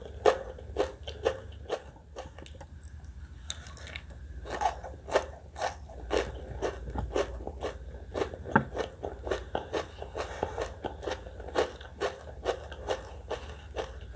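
Close-miked chewing and biting of crunchy spicy catfish salad with shredded sour green mango: sharp, irregular crunches several times a second, thinning out for a moment about two seconds in.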